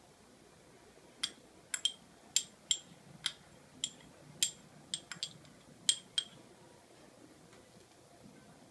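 A small spoon clinking against a miniature clay pot as it scrapes the last of the pie filling out: about a dozen sharp clinks, irregularly spaced, over about five seconds.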